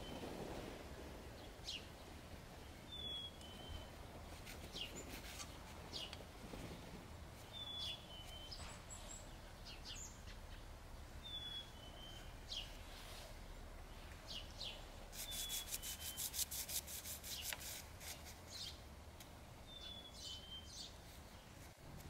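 Dry pastel stick scratching across sketchbook paper in short strokes, with a quick run of rapid back-and-forth scribbling about two-thirds of the way through. A small bird gives a short two-note call every four seconds or so.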